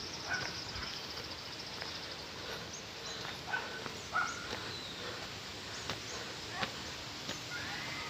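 Footsteps climbing concrete steps on a wooded path, with short bird calls and an insect's rapid high trill in the first two seconds.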